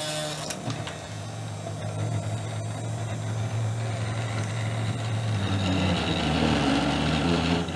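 Sainsmart Genmitsu 3018 PROver desktop CNC router running a job: its 60 W spindle motor spinning with a steady whir while the stepper motors hum as the axes move. The pitch pattern shifts a little after halfway and the sound grows slightly louder.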